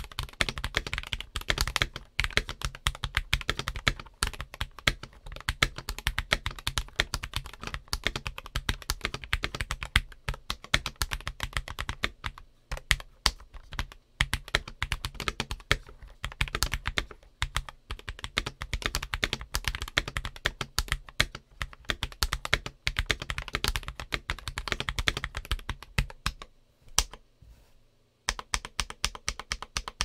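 Typing on a Keychron V5 mechanical keyboard fitted with Akko Starfish switches, broken in with 240K actuations, and PBT Cherry-profile keycaps: a steady stream of keystrokes, with a short pause a few seconds before the end.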